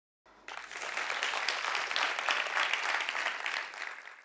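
Audience applauding: a dense crackle of many hands clapping that starts just after the beginning and dies away near the end.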